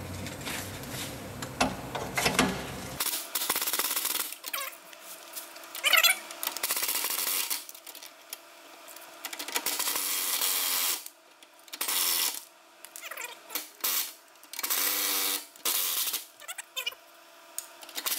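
A power wrench running in repeated bursts of one to three seconds, spinning the lower shock-absorber nut off its bolt, with metal clinks between bursts.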